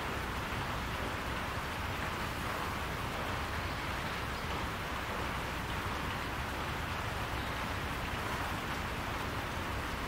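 Steady rain falling on a roof: an even hiss of rain with a low rumble beneath, unchanging throughout.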